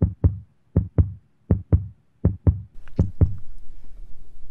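Transition music sting of deep, punchy drum-machine beats in pairs: five double hits about three-quarters of a second apart. Steady outdoor background noise fades back in under the last few hits.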